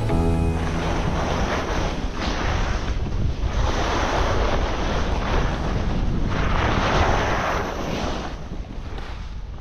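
Wind noise on the microphone of a camera carried by a skier going downhill, a steady rush that swells and eases in waves and fades away near the end.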